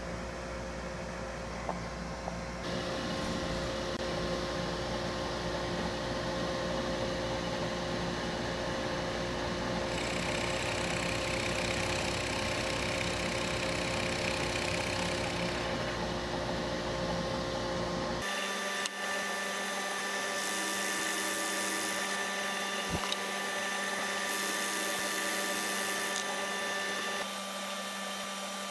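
Drill press motor running steadily, with a Forstner bit boring wheel wells into hardwood blanks; stretches of hissing cutting noise come and go over the motor's hum.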